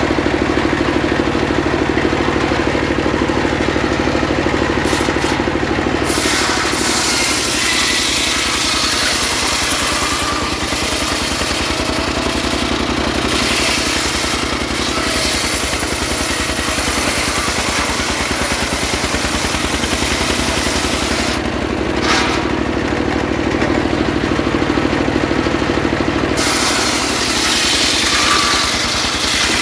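Homemade circular sawmill driven by a stationary single-cylinder diesel engine running steadily. About six seconds in, the blade bites into a trembesi (rain tree) log and rips along it with a loud, high hiss until about 21 seconds. A few seconds of engine alone follow, and a second rip cut starts near the end.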